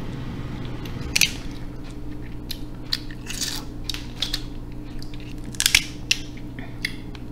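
Boiled snow crab leg shells cracking and snapping as they are broken apart by hand, a string of irregular sharp cracks with the loudest about five and a half seconds in.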